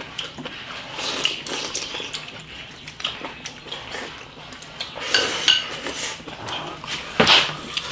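Chopsticks clicking and scraping against rice bowls as two people eat, with chewing and a few louder slurps about five seconds in and near the end.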